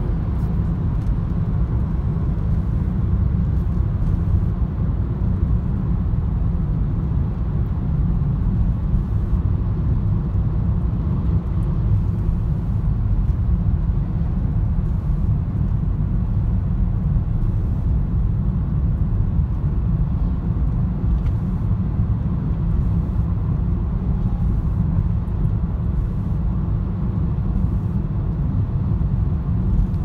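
Steady low rumble of a car cruising on a highway, heard from inside the cabin: road and tyre noise with engine hum.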